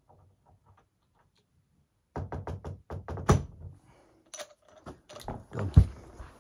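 A plastic boiler return manifold and its brass union clicking and knocking as the union is worked into place by hand. A quick run of sharp clicks comes about two seconds in, followed by several heavier knocks and thuds.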